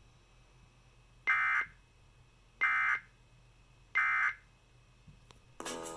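Emergency Alert System end-of-message data bursts: three short, identical buzzy digital screeches about 1.3 seconds apart, the standard signal that closes an EAS tornado warning broadcast. A different loud tone starts just before the end.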